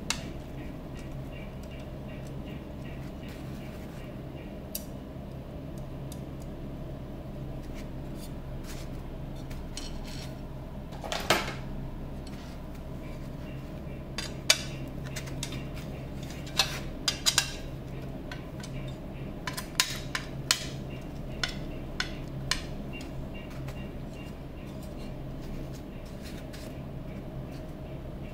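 Scattered metallic clicks, taps and clinks of small screws, nuts and hand tools against a black metal chassis back panel as it is fastened by hand, sparse at first and more frequent in the second half, with one longer scrape. A steady low hum runs underneath.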